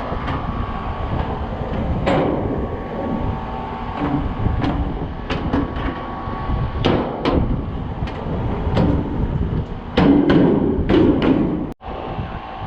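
Air-conditioning condenser unit running with a steady hum, its newly installed fan motor turning, while a series of sharp clicks and metallic knocks sound over it. The sound drops out for an instant near the end.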